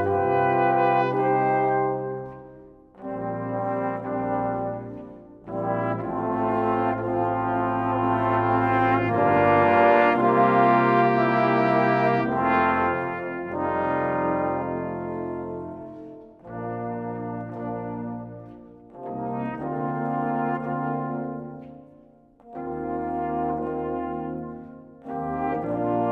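Brass ensemble of trumpets, trombone and tuba playing classical chamber music. It plays in short phrases broken by brief gaps, with one longer unbroken passage in the middle.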